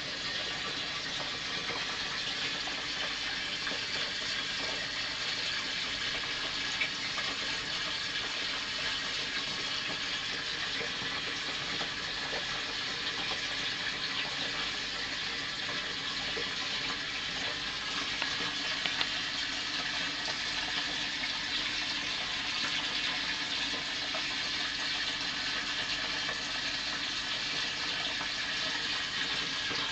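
Steady trickling and bubbling of aquarium water running through the tank's filter, with a couple of faint ticks.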